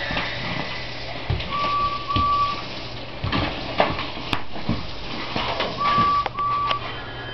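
Toy Thomas the Tank Engine train pushed along a tiled floor on its side, knocking and scraping in irregular bumps, with a low steady hum behind. Twice, a pair of short steady beeps sounds, about a second and a half in and again about six seconds in.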